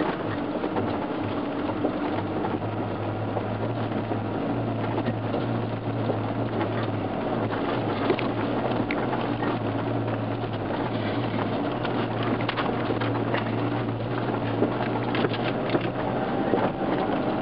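Off-road 4x4 driving slowly along a gravel and dirt track: a steady engine hum under the rumble of the tyres on the gravel, with scattered knocks and rattles from bumps, more of them about halfway through and near the end.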